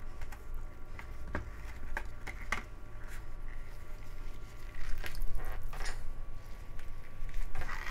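Salted radish, carrot and cucumber strips wrapped in a cotton cloth, squeezed by hand: wet squishing as the brine is pressed out, with scattered small handling clicks and the busiest squeezing about five seconds in.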